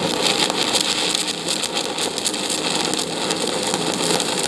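Stick-welding arc of an aluminum stick electrode run on DC electrode-positive at about 100 amps on aluminum plate: a steady, dense crackle and sizzle as the rod burns.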